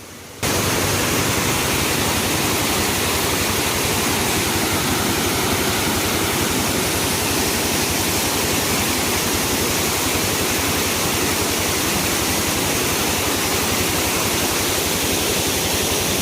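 A small waterfall in full flow after rain: a steady, loud rush of falling water that starts abruptly about half a second in.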